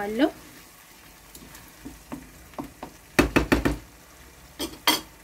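Tomato sauce frying faintly in a pan while a wooden spoon stirs it. A little past halfway comes a quick run of about five knocks, then two more near the end.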